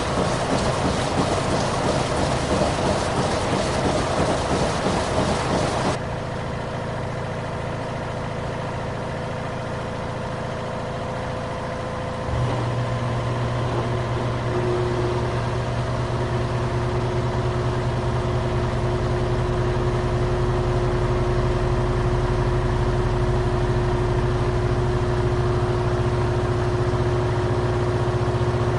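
Washing machine running. For about the first six seconds a dense churning noise, which stops abruptly and leaves a quieter steady hum; about twelve seconds in a deeper, louder motor hum cuts in and runs steadily to the end.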